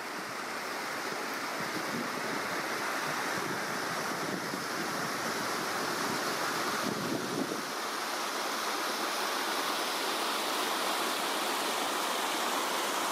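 Steady rushing of a fast mountain river. Wind buffets the microphone with a low rumble that drops away a little past halfway.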